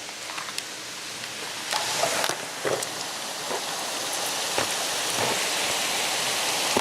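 Heavy rain falling, growing louder about two seconds in, with scattered sharp taps of drops striking close by.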